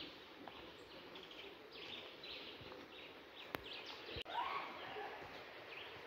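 Footsteps crunching on a rocky trail strewn with dry leaves, with faint bird calls and two sharp clicks about three and a half and four seconds in.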